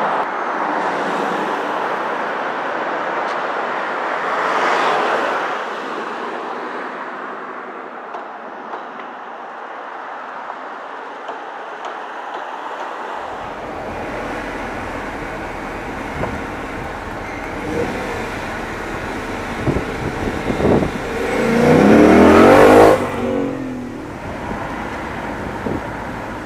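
Ford Mustang Mach 1's 5.0-litre V8 driving past with engine and tyre noise, swelling about four seconds in. Near the end it gives a short, loud rev as it pulls away.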